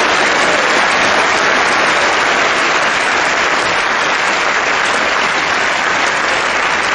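Spectators applauding the end of a tennis point: steady clapping that eases slightly near the end.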